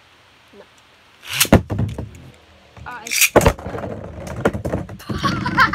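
Two sharp Beyblade launches about two seconds apart, then spinning tops clicking and knocking against each other in a plastic Beyblade stadium.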